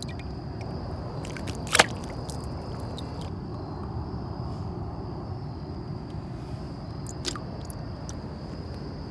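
A sharp knock about two seconds in and a lighter click near the end, over a steady low hiss and a faint, continuous high-pitched drone.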